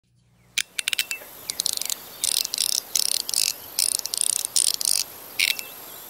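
Rapid high-pitched clicking and rattling in short clusters, beginning with a few single clicks about half a second in.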